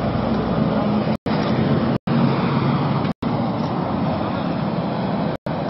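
Steady, loud outdoor rumble with a low, engine-like hum, such as road traffic or site machinery. It is cut by four very short silent dropouts.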